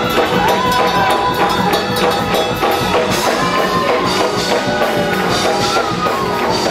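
Live gospel music in a church, with drums and a tambourine keeping the beat under the pitched instruments and voices.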